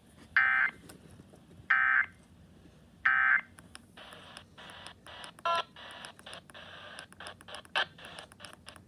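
Emergency Alert System end-of-message signal: three short bursts of the SAME digital header tones, each under half a second and about 1.3 s apart, closing the monthly test. Then choppy, broken-up noise in short bursts.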